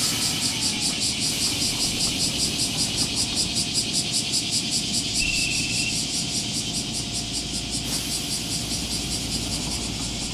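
A chorus of cicadas shrilling in a rapid, even pulse, about five beats a second, over the low steady hum of a Kotoden electric train standing at the platform. A brief high beep sounds about five seconds in.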